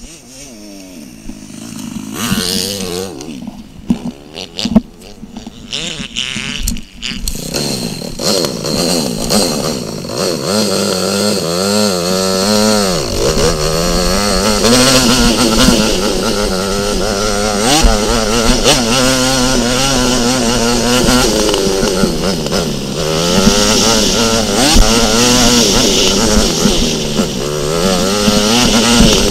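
Motocross dirt bike engine, heard from on the bike, revving hard as it rides a dirt track. It is faint for the first few seconds, then loud, its pitch climbing and dropping again and again as it accelerates and shifts through the gears.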